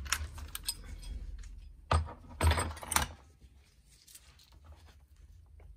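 Hand tools clinking on metal at the rocker arm's valve adjuster lock nut, with a cluster of louder metallic knocks about two to three seconds in.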